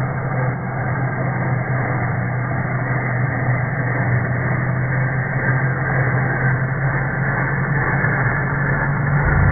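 A steady mechanical hum with a low drone and a hiss over it, unchanging throughout.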